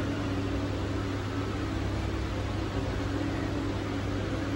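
Electric multiple-unit (EMU) local train running slowly, heard from its open doorway: a steady electrical hum and fan-like rushing, with a low drone and a constant higher tone.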